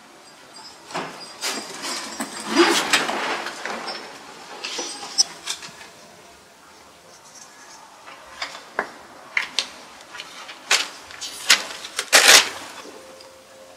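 Scattered clicks and knocks with a stretch of rustling, the loudest knock near the end, from small objects being handled.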